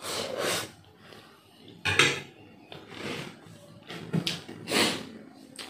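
Close-up eating sounds of spicy instant noodles: a slurp of noodles off a fork at the start, then chewing, with sharp clinks of metal cutlery against a ceramic plate, the loudest about two seconds in.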